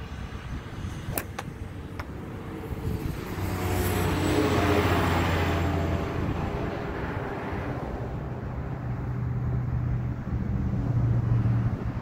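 Engine noise from a passing motor vehicle, swelling to its loudest about four to five seconds in and then fading, with a low engine hum building again near the end. A few sharp clicks come in the first two seconds.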